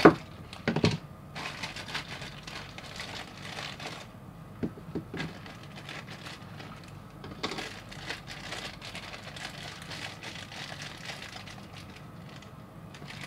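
Thin clear plastic bag crinkling and rustling in short, sharp crackles as it is cut open and a small figurine is pulled out of it, with a loud snip of scissors at the very start.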